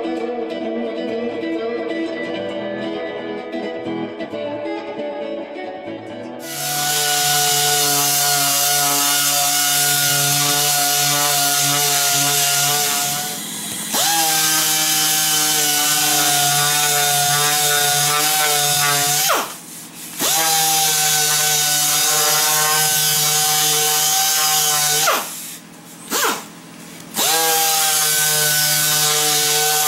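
Guitar music for the first few seconds, then an electric power sander starts and runs steadily on wood. It shuts off and restarts three times, its pitch rising as it spins back up.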